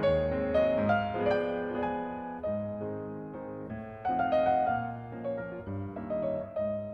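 Background piano music, a gentle melody of struck notes over a lower accompaniment.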